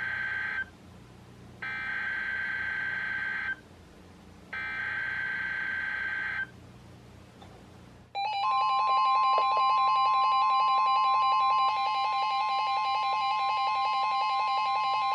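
Weather radios receiving an Emergency Alert System SAME header: three short bursts of buzzing digital data, then about eight seconds in the long steady warning alarm tone starts, joined by the radios' own beeping alert tones. It is the start of an alert, here for a severe thunderstorm warning.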